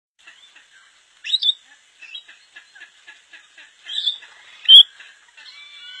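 A flock of rainbow lorikeets chattering in fast, short chirps, broken by loud shrill screeches about a second in and twice near the four-to-five-second mark. The second of those two late screeches is the loudest. Near the end come longer whistled calls.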